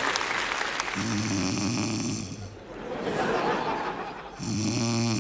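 A woman snoring: two long, rasping snores, one about a second in and one near the end, with a quieter breath between them.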